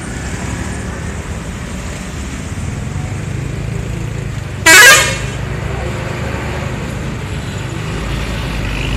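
Road traffic rumbling, with one short, very loud bus horn blast about five seconds in. Near the end the low rumble grows louder.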